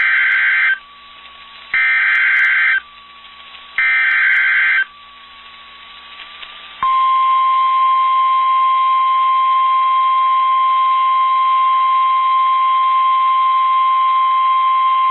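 NOAA Weather Radio Emergency Alert System alert: three roughly one-second bursts of screeching SAME header data, about a second apart. About halfway through comes the steady single-tone attention signal, held for about nine seconds, which opens the broadcast of a severe thunderstorm warning.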